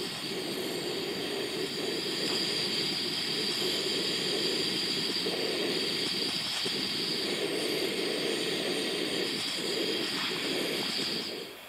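Remote-canister gas stove burner running under a pot, a steady hissing roar that cuts off near the end. The flame is blown about by a cold wind, with no windshield ring round it.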